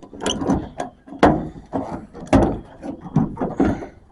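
A string of irregular knocks and rattles as the bungee strap holding up a trailer tailgate is worked loose by hand, with two harder knocks about a second and two and a half seconds in.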